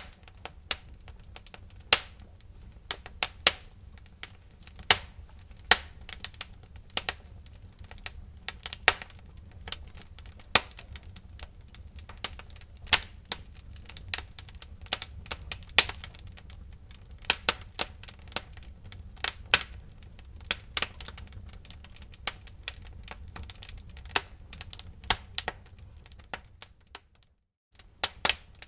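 Wood fire crackling in a fireplace: irregular sharp pops and snaps over a steady low rumble of the flames. The sound cuts out for about a second near the end, then the crackling resumes.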